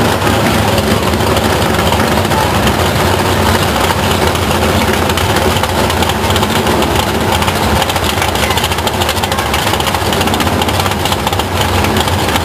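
Loud drag-race engines running steadily near idle at the starting line, among them the alcohol-burning 406 cubic-inch small-block Chevy of an altered dragster.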